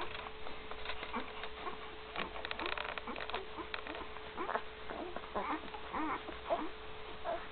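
Week-old Great Dane puppies nursing, making many short squeaks and grunts, with a cluster of quick suckling clicks a couple of seconds in. A steady hum runs underneath.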